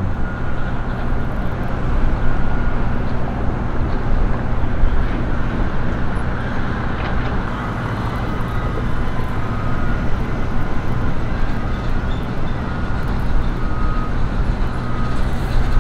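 A car driving: steady road and engine noise with no change through the stretch.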